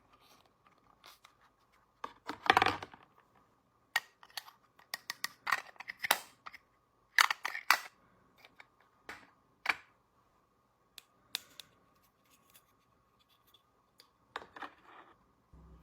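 Small sharp clicks, snips and scrapes from handling a miniature plastic toy kitchen set and its packaging, in irregular bursts, with a louder scrape about two and a half seconds in. A faint steady high hum runs underneath.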